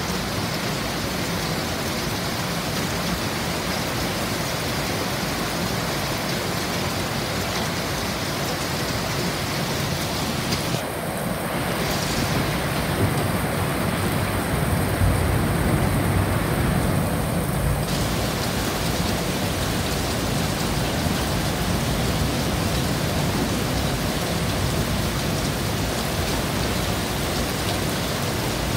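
Heavy rain falling steadily in a thunderstorm. A low rumble of thunder swells and fades away through the middle of the stretch.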